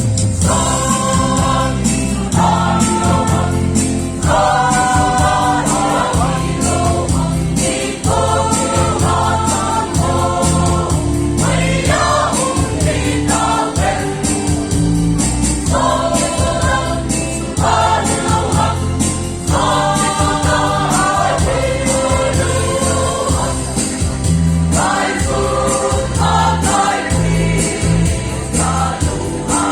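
Choir singing a gospel song over instrumental accompaniment, in repeated sung phrases with short breaks between them.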